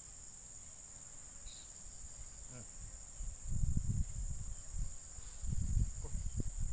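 Steady high-pitched insect chorus humming without a break, with low rumbling surges coming and going from about halfway through.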